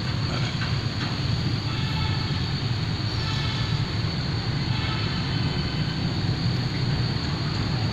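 A steady low rumble of background noise that neither rises nor falls.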